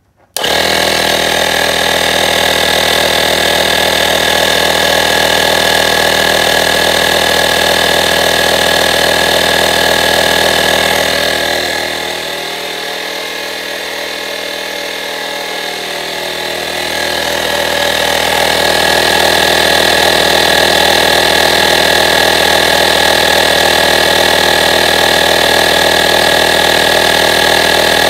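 AstroAI A220B 12V portable tire inflator starting abruptly and running steadily as it pumps up a car tire, a constant buzzing motor-and-piston hum. It sounds quieter for several seconds around the middle, then steady again.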